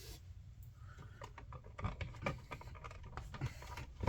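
Irregular small clicks, scrapes and knocks of a smart outlet and its wires being pushed into an electrical wall box, starting about a second in, over a steady low hum.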